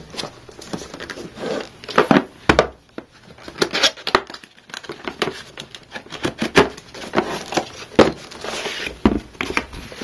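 Cardboard accessory box being handled and its lid lifted open: a string of irregular light knocks, taps and rustles of cardboard.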